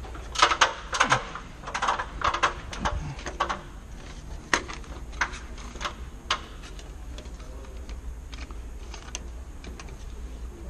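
Quick clicks, taps and rattles of hands working wire ends and a small plastic sensor with its plug. They come in a dense cluster over the first few seconds, then as scattered single taps.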